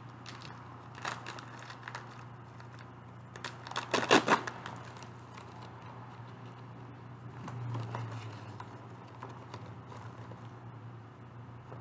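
Rustling and crinkling of a mail package being opened by hand, with a loud short burst of handling about four seconds in and paper being shuffled near the end. A steady low hum runs underneath.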